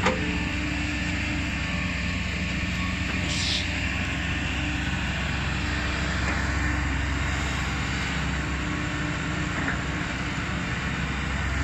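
Kobelco SK200 excavator's diesel engine running steadily while digging and loading soil, with a brief hiss about three and a half seconds in.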